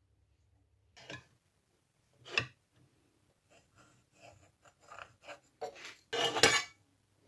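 Metal tool parts being handled on a workbench: scattered clinks and knocks after a second of quiet, one sharp knock about two and a half seconds in and a longer clattering rattle near the end.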